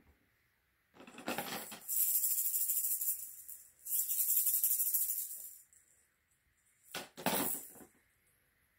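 Small bells and plastic toys jingling and rattling in a plastic basket as a rabbit noses through them. It comes in two bouts: a long one starting about a second in and lasting some four seconds, and a short one near the end.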